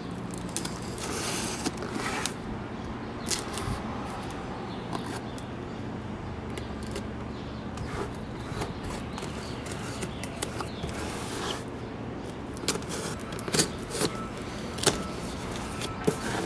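A knife slitting the packing tape on a cardboard box: scraping and rustling of blade, tape and cardboard, with a run of sharp clicks and taps near the end as the box is handled, over a steady low hum.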